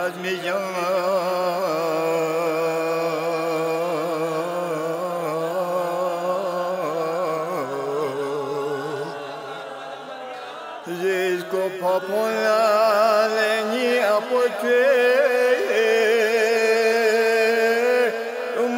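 A man's voice chanting a Balti marsiya, a Shia elegy, in a slow, melismatic style with heavy vibrato over a steady low drone. About eleven seconds in the recitation grows louder and climbs higher in pitch.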